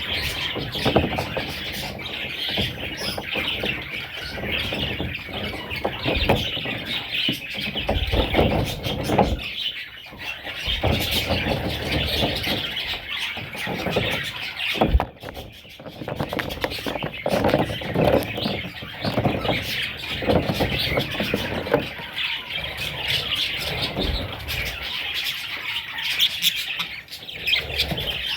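Budgerigars chattering and squawking continuously, a dense mix of warbles and chirps, with low thumps and rustles now and then and a brief lull about halfway through.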